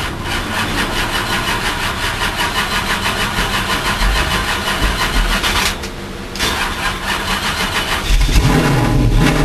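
Race car engine running hard with a rapid, even firing pulse. About six seconds in it drops away briefly, then picks up again, heavier and lower.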